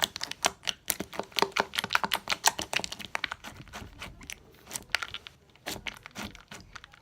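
Clear, putty-like slime being squished and stretched by hand, giving rapid crackling clicks and pops that thin out after about four seconds.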